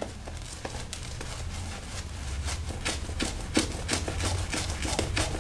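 Zenith 502 silvertip badger shaving brush working shaving cream lather on the face: a quick, irregular run of soft wet clicks and crackles, over a low steady hum.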